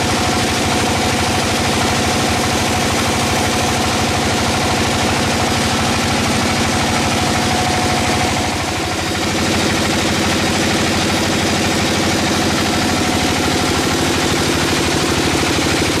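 Sawmill engine running steadily with a fast, even pulse. About nine seconds in it briefly drops in level, and its tone then settles lower.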